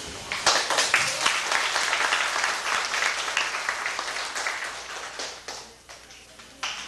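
A group of people applauding: dense clapping that thins out and dies away about five to six seconds in.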